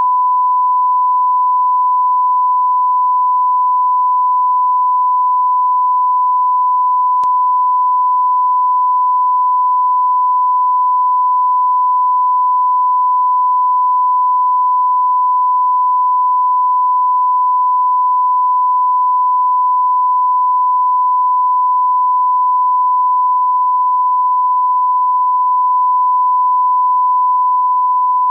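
Line-up test tone that accompanies colour bars: one pure, steady beep held unbroken at a constant level.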